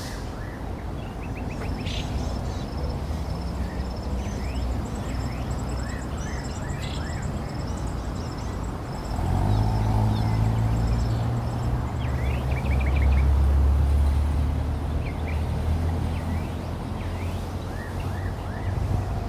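Low engine rumble of motor traffic that swells about halfway through and is loudest a few seconds later, as a vehicle passes close. Over it, faint short chirps and a thin, rapidly pulsing high trill in the first half.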